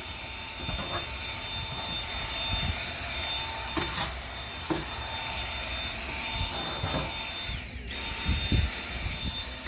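Dyson V7 cordless stick vacuum's digital motor running with a steady high whine over airflow hiss, with a few light knocks. Just before 8 seconds in, the whine glides down and cuts out for a moment, then starts up again at full speed.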